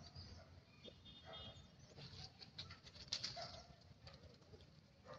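Faint outdoor ambience: a brief high bird-like chirp about a second in, and scattered soft clicks and crackles, loudest about three seconds in.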